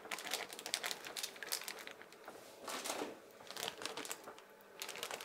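Sealed plastic zip-top freezer bags crinkling in irregular bursts as they are handled and lowered into a sous vide water bath.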